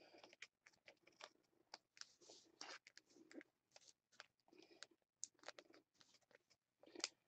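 Faint, irregular rustling and clicking of trading cards and their plastic holders being handled.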